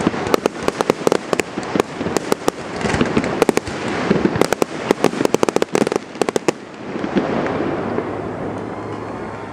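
Fireworks display: rapid volleys of aerial bursts and sharp crackling reports, many cracks a second. They stop about two-thirds of the way through, leaving a steady background noise.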